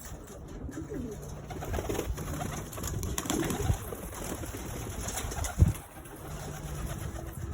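Racing pigeons cooing in a loft, with repeated low rolling coos of courting birds. A single low thump stands out about five and a half seconds in.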